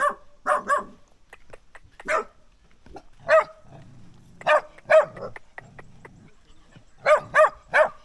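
Dog barking repeatedly in short runs of sharp barks, about ten in all, with a pause of about two seconds before a quick run of three near the end. Village dogs barking at a passing stranger.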